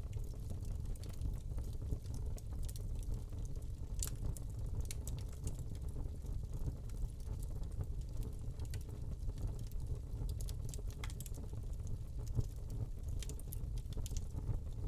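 Wood log fire burning in a fireplace: a steady low rumble of flame with scattered small crackles and pops, a few louder than the rest.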